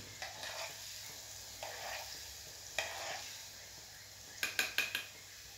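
A metal spoon stirring warm spiced oil in a small pot, over a faint steady sizzle, with a quick run of sharp clinks of the spoon against the pot's side near the end.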